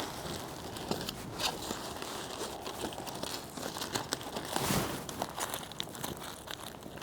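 A burrito's wrapper crinkling and crackling as it is handled and unwrapped, with a louder rustle about five seconds in.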